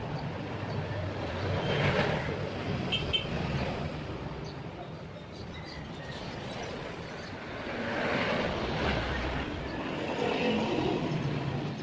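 Road traffic passing: one vehicle swells up and fades about two seconds in, and another passes from about eight to eleven seconds, over a steady low traffic hum.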